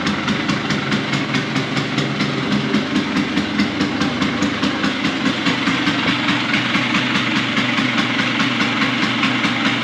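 LML Star Deluxe 150 scooter's single-cylinder two-stroke engine idling steadily with a fast, even beat.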